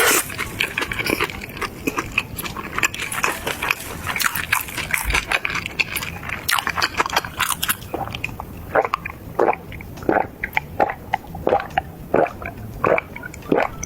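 Close-miked eating of crispy fried food: crisp bites and crunching, then regular chewing with softer, wetter strokes about twice a second from about halfway on.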